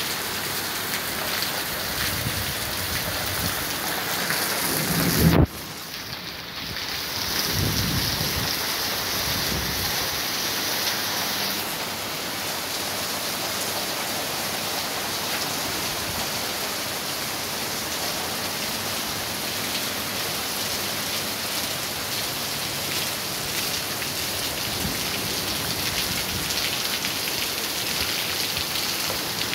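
Heavy rain pouring steadily onto a street. About five seconds in a loud thunderclap hits, and the sound level drops sharply right after it, followed by several seconds of low rumbling thunder.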